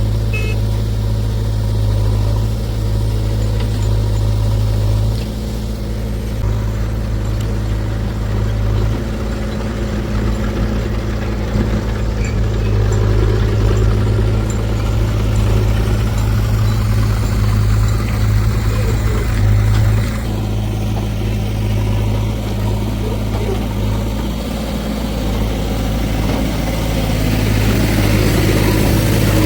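Heavy machinery diesel engine running steadily with a deep, even note. It eases a little a couple of times and picks up again near the end.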